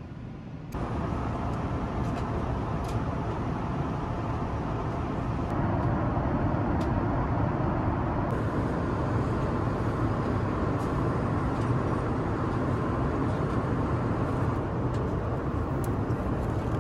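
Steady cabin noise of a Boeing 787-9 airliner in cruise: a constant rush of airflow over a low engine drone. It steps up in loudness about a second in and again after about five seconds.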